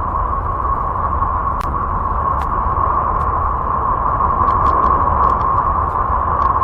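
Sonified space recording attributed to a celestial body: a steady hissing drone centred on one pitch, with a low rumble beneath and a few faint scattered ticks.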